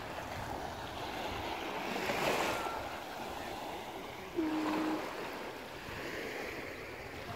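Small waves lapping and washing over a pebble shore, swelling about two seconds in and again near the end. About halfway through a brief steady tone sounds for about half a second.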